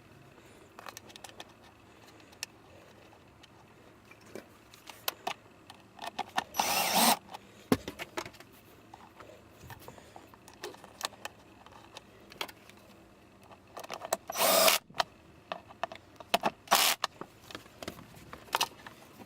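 Small clicks and taps of plastic and aluminium console hinge parts being handled and fitted together, with three short, louder bursts of noise about 7, 14 and 17 seconds in.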